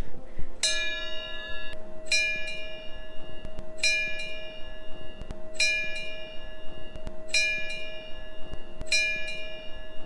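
Small hanging metal bell rung by hand six times, a clear ring about every one and a half to two seconds, with a steady lower hum that carries on between strikes.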